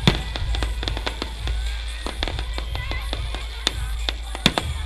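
Aerial fireworks going off: a loud bang at the very start, then scattered pops and crackles, with two more sharp bangs near the end. Music plays underneath.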